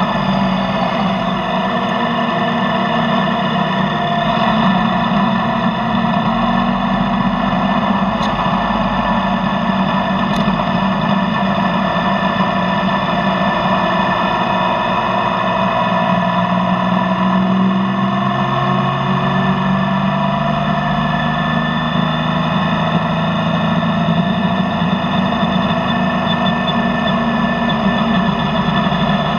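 Yamaha Tracer motorcycle engine running steadily through its stock exhaust, its pitch shifting a little now and then.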